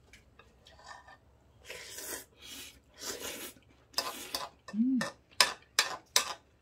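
Eating ramen: several short slurps of noodles, then a few sharp clicks of utensils against a bowl, with a brief hum in between.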